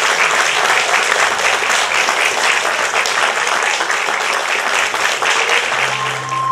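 Audience applauding, steady dense clapping from a hall full of people.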